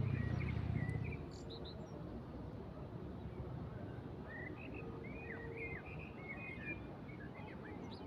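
Small songbirds chirping in short gliding calls, busiest in the middle, over a steady hiss of breeze and water. A low hum is heard at the start and stops about a second in.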